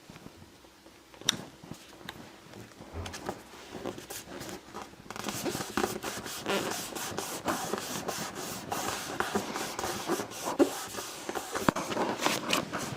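Paper and cardstock being handled on a craft table: scattered light taps and clicks, then from about five seconds in a steady rustling and scraping of paper with many small clicks.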